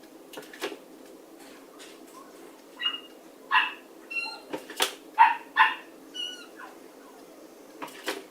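A dog making short vocal sounds in separate bursts, the loudest about three and a half and five seconds in, with thin high-pitched squeaks between them.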